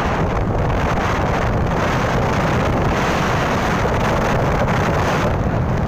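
Steady rushing wind noise buffeting the microphone of a camera on a moving motorcycle, with the low rumble of the ride beneath it.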